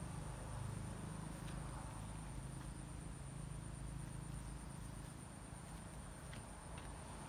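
Steady outdoor background: a low rumble under a constant high-pitched insect drone, with a few faint ticks.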